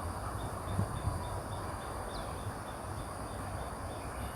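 Outdoor ambience: an insect chirps steadily at about five chirps a second over a low rumble of distant background noise, with one brief high call about two seconds in.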